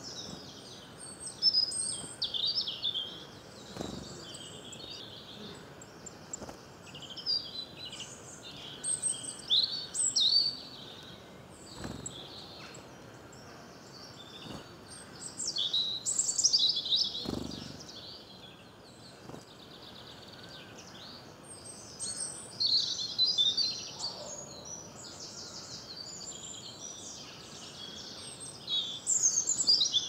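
Songbirds singing and calling in woodland: high, quick trilling phrases from several birds, coming in bursts every few seconds. A few faint soft knocks sit beneath.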